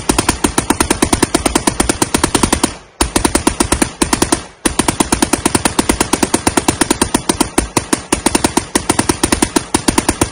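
Browning M1919 machine gun firing on full automatic in long bursts, about eight or nine shots a second. It stops briefly just before three seconds in and again around four and a half seconds in, then fires on steadily.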